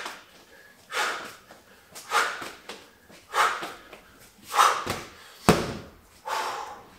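A man's sharp, forceful breaths, about one a second, in time with swinging a Bulgarian bag. A sharp thud about five and a half seconds in as the bag is dropped onto the gym floor mat.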